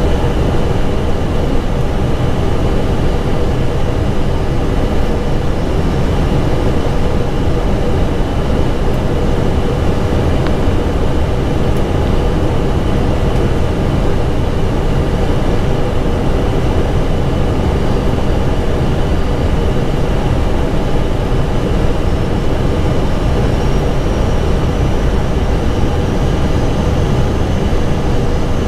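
Steady loud cockpit noise of an Airbus A320 on final approach in landing configuration: a rush of airflow with engine hum and a few steady tones. A faint high whine rises slowly in pitch near the end.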